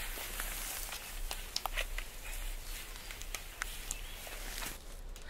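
Scattered light knocks and clicks of split firewood pieces being handled and set down, over a faint outdoor hiss.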